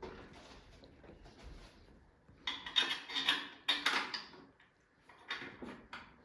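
Clatter of small hard objects being handled, in two bursts: a longer one a couple of seconds in and a shorter one near the end.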